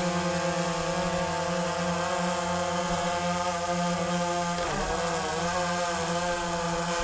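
DJI Phantom 3 Professional quadcopter hovering low, its four propellers giving a steady buzzing hum. About five seconds in the pitch briefly dips and wobbles as the drone turns.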